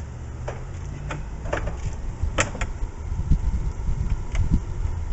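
Sharp metal clicks and clinks as a bolt is fitted into the VW Beetle door's window regulator, over a low rumble with uneven thumps in the second half.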